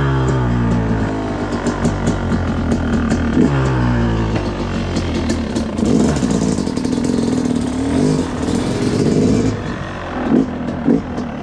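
2019 Yamaha YZ250 single-cylinder two-stroke dirt bike engine revving. Its pitch falls twice in the first few seconds as the revs drop back, then it runs rougher and uneven under throttle, with a few sharp blips near the end, as the bike pulls away over pavement.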